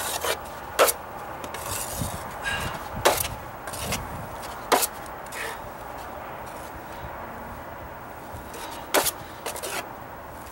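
Steel putty knife scraping and clicking as it spreads and smooths patching compound along a wooden stair tread. Irregular sharp clicks of the blade, about a dozen, with softer scraping strokes in between.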